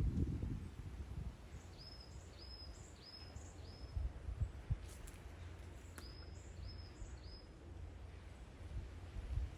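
A small bird calling in short, high repeated notes: a run of four about two seconds in and another run of three about six seconds in. Underneath runs a steady low rumble of wind on the microphone.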